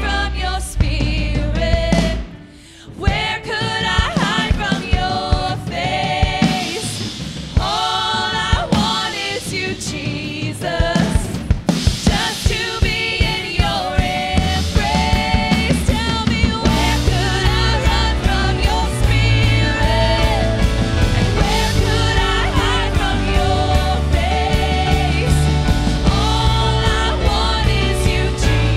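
Live worship band music: several singers over drum kit, bass and electric guitar with a steady beat. The music drops away briefly about two seconds in, then comes back.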